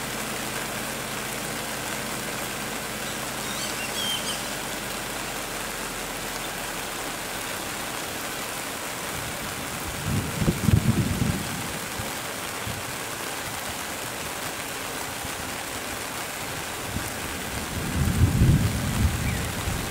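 Steady hiss of rain falling on foliage, with two loud low rumbles, one about halfway through and one near the end.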